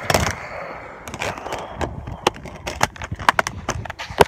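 Clothing rubbing and brushing against the phone's microphone, with a run of sharp, irregular clicks and knocks.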